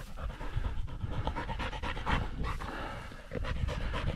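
Pheasant-hunting dog panting quickly and steadily at close range, winded from working the field and retrieving a rooster.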